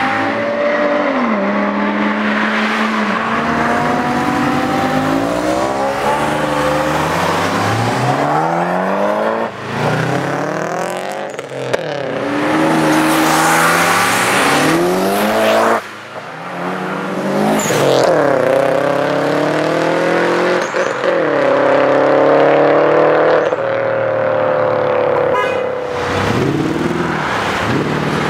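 High-performance car engines accelerating hard, one pass after another: the pitch climbs through each gear and drops at every upshift. Several abrupt cuts separate the passes, one of them a Porsche 911 Carrera pulling away.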